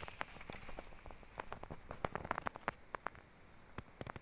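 Irregular close crackling and rustling as a cat's fur rubs against the camera's microphone, a run of short, uneven clicks.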